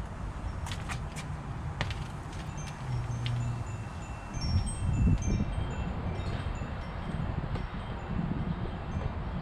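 A few sharp metallic clinks in the first two seconds, then scattered high, short ringing tones at different pitches, like chimes, over a low rumble that swells about three and five seconds in.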